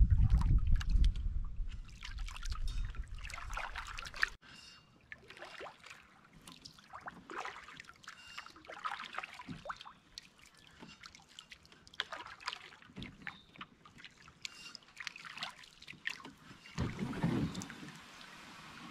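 Canoe paddling: paddle strokes with water trickling and lapping along the hull, with heavy wind rumble on the microphone for the first four seconds. Near the end a louder scrape as the bow runs up onto the shore.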